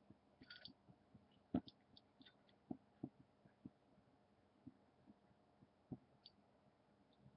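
Near silence: room tone with faint, scattered low thumps and a few small clicks, the loudest about one and a half seconds in.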